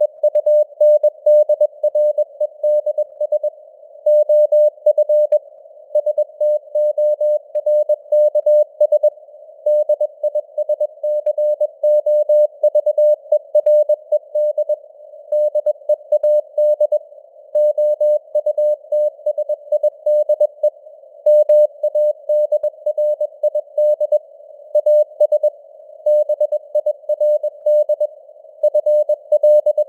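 Morse code (CW) keyed at 21 words per minute as a single mid-pitched beeping tone in an uneven pattern of short and long beeps. It sits in a narrow hiss of simulated radio noise, and the signal strength drifts slightly up and down (QSB).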